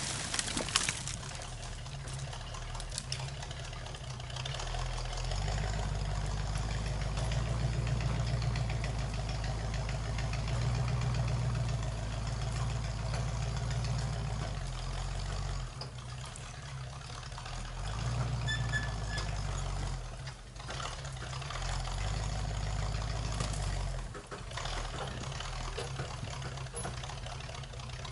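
A logging skidder's engine running, a low steady engine note that rises in level for several seconds twice as it is worked harder and then settles back.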